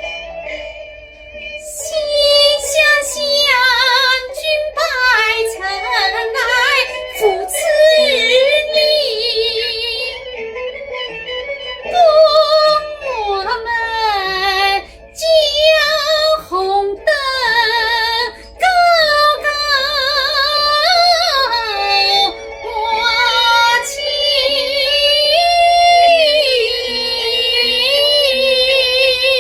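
A woman singing a Wu opera (婺剧) aria in a high voice with heavy vibrato, in phrases broken by short breaths, over an instrumental backing, recorded directly on a phone.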